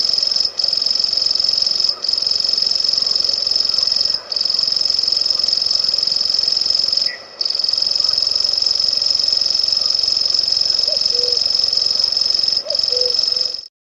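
A Locustella warbler reeling: one high, steady, unbroken trill, interrupted by a few brief gaps and a longer pause about seven seconds in, and stopping just before the end.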